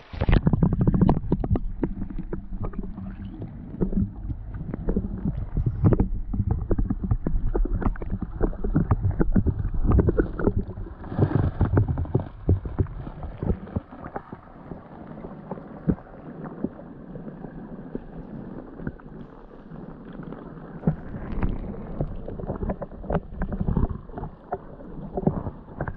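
Muffled underwater sound from an action camera held submerged in a river: water moving against the housing, with many small knocks and clicks from the housing being handled.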